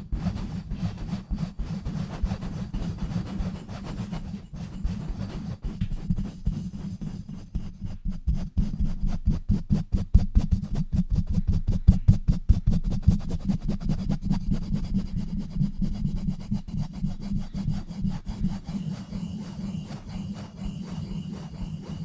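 Fingers scratching and rubbing fast and hard on a webcam and a Blue Yeti microphone. Close up, this makes a dense, muffled rumble of strokes. The strokes grow quicker and louder in the middle.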